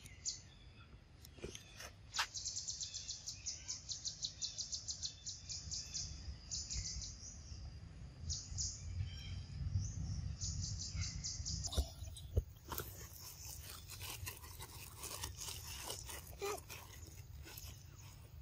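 Rapid high-pitched chirping in long, evenly spaced runs of several chirps a second, over a low outdoor rumble. Near the middle the chirping stops, and scattered faint clicks and rustles follow.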